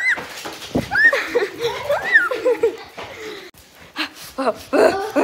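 A person laughing in short, high rising-and-falling giggles, with a louder burst of laughter near the end.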